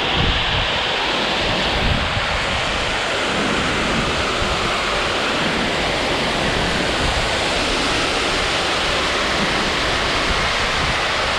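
Concrete mixer truck running with a steady, loud rushing noise as water is added to the load and mixed in.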